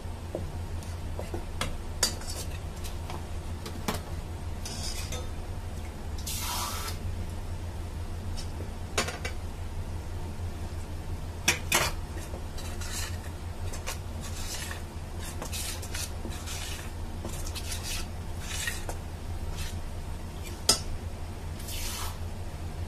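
Metal spoon stirring and scraping rice flour and cornstarch in a stainless steel bowl, with scattered sharp clinks of the spoon against the bowl and short scraping swishes as the flour is worked into a wet paste.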